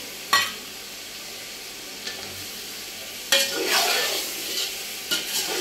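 Chicken and tomato masala frying in a large metal pot, with a steady sizzle. A metal spoon knocks against the pot once about a third of a second in. From about three seconds in the spoon stirs and scrapes through the frying masala, and the sizzle grows louder as it is turned over.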